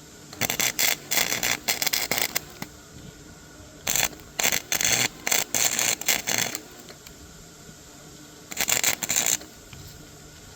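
Three spells of quick, rough scraping strokes: hand work on metal parts, with pauses between.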